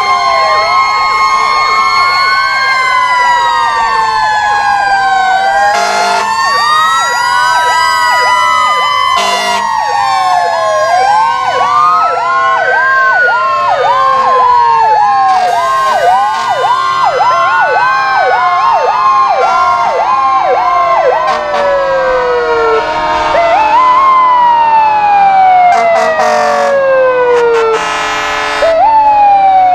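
Several fire engine sirens sounding at once: overlapping wails rise and fall, with a fast yelp in the middle stretch and long falling wind-downs near the end. Short horn blasts cut in a few times.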